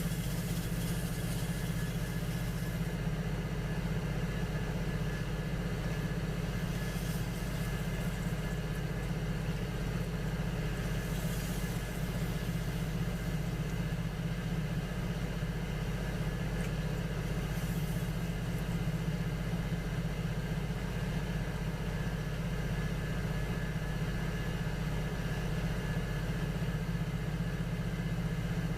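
Electric potter's wheel running steadily with a low motor hum. A few brief hisses rise over it.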